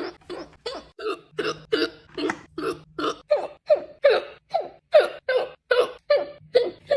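Rapid, evenly spaced hiccups, about three a second, each a short, high-pitched catch of the voice that falls slightly in pitch.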